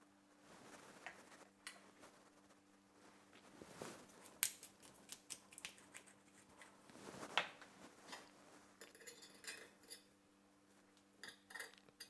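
Faint, scattered clicks and clinks of kitchen utensils against a ceramic plate: wooden tongs and a metal fork plating spaghetti. This plays over a faint steady hum.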